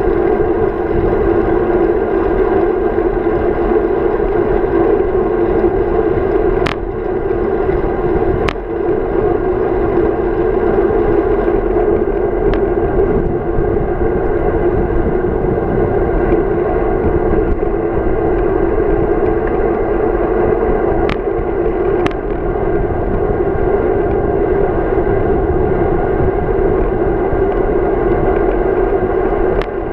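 Steady, muffled rush of wind and tyre noise from a road bike rolling along an asphalt path, picked up through a handlebar-mounted camera, with a few sharp clicks now and then.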